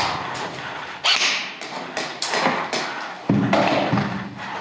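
A series of sharp, irregular knocks and thuds, roughly seven over four seconds, with a low hum in the last second or so.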